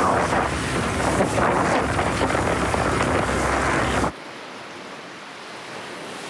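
Inflatable dinghy speeding under its Honda outboard motor, with heavy wind buffeting on the microphone and the hull slapping through chop and spray. About four seconds in the sound cuts off abruptly to a much quieter steady hiss.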